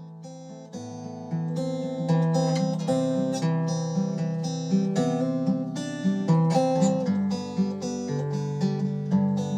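Background music: solo acoustic guitar playing plucked and strummed chords, getting louder about a second in.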